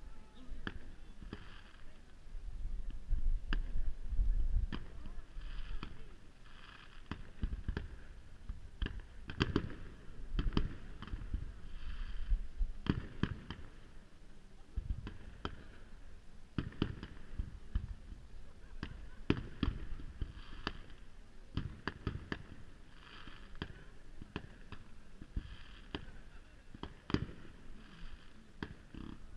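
Aerial fireworks shells bursting in a string of sharp bangs at irregular intervals, some coming in quick runs of several.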